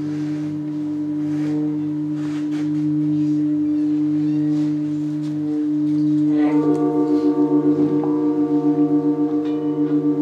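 Tibetan singing bowls ringing with steady, sustained tones; about six and a half seconds in another bowl is struck with a mallet, adding brighter tones and a fast wavering pulse to the ring.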